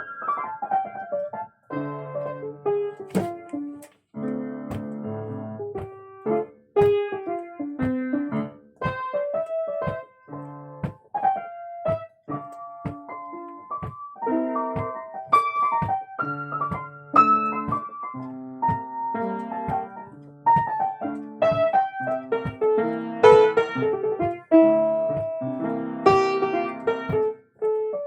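Piano or electric keyboard being played: a melody over chords, opening with a quick falling run of notes.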